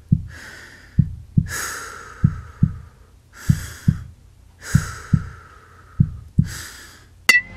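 Heartbeat sound effect, a double thump about every second and a quarter, with heavy breathing in and out between the beats. A single sharp crack comes near the end.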